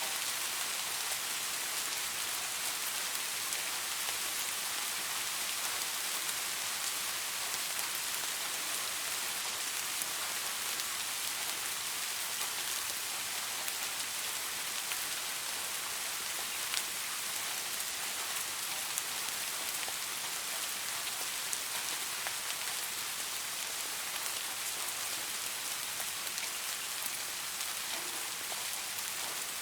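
Steady rain falling on leaves, an even hiss dotted with the small ticks of separate drops.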